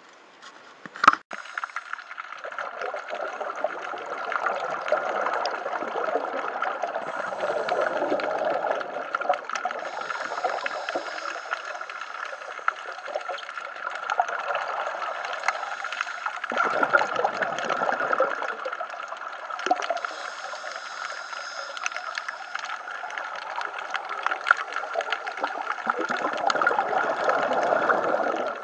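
Underwater sound of scuba divers breathing through their regulators: exhaled bubbles gurgle in long swells every several seconds over a steady hiss. A sharp click comes about a second in.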